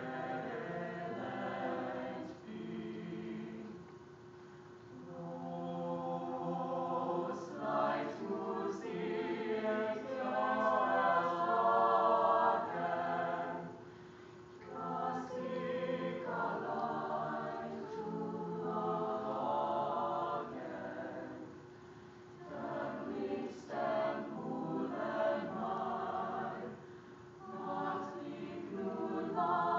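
A choir singing a madrigal in several voice parts, phrase by phrase, with short breaks between phrases.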